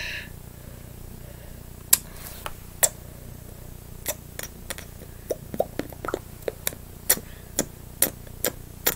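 A string of short, sharp mouth clicks and lip pops made with a hand at the lips, a few at first from about two seconds in, then coming faster at roughly two a second, over a faint steady hum.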